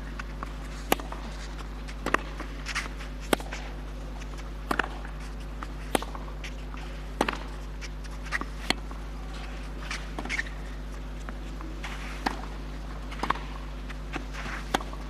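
Tennis ball struck back and forth in a baseline rally on a clay court: a sharp racket hit about every second and a quarter, over a steady low hum.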